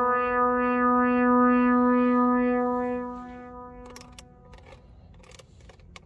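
A single held synthesizer note, a sampled Minimoog Model D sound, with its upper overtones pulsing about twice a second. It fades away about halfway through, leaving a few faint clicks and scrapes.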